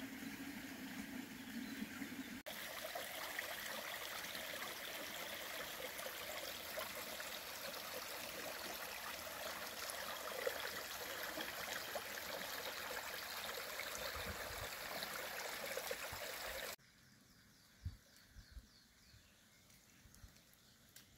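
Shallow spring-fed brook trickling and splashing over stones, a steady rush of water that stops abruptly about seventeen seconds in, leaving faint bird chirps.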